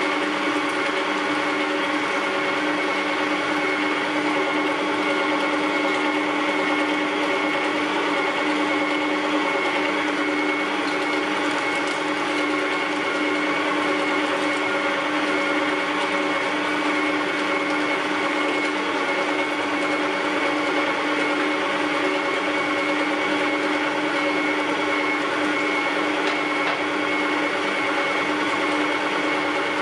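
Electric meat grinder running steadily, its motor and gears giving a constant hum with a steady whine while minced meat is pushed through the grinding plate.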